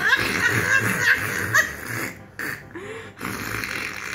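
Women laughing in short, breathy bursts broken by brief pauses.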